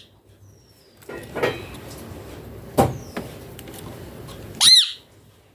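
Indian ringneck parakeet calling: a few short calls that sweep up and down in pitch, the loudest a screech near the end.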